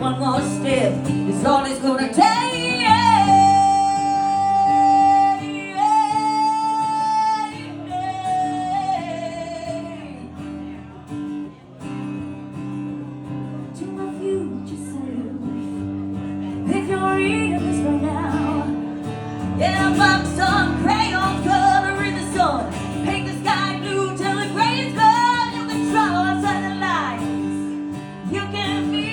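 Live female vocal with guitar accompaniment. The singer holds long sustained notes early on, the voice drops out for a quieter guitar stretch, and then the singing comes back over the strummed chords.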